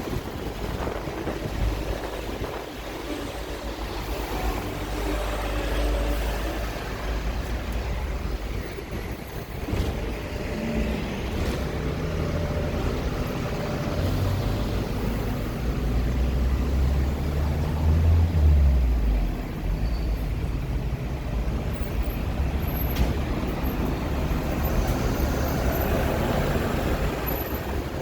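Hong Kong double-decker tram running through the street: a steady low rumble of the tram and road traffic. A deeper hum grows and shifts in pitch from about a third of the way in, then drops away suddenly about two-thirds through.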